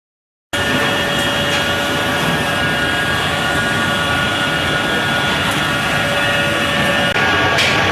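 Vertical ring die pellet mill running steadily under load: a loud, dense mechanical noise with a steady whine in it. It starts abruptly about half a second in.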